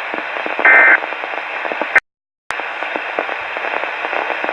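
Weather radio receiver hissing with static, and about a second in one short buzzing burst of SAME digital alert data, the end-of-message code that closes a broadcast alert. Around two seconds in the audio cuts out completely for half a second, then the hiss returns.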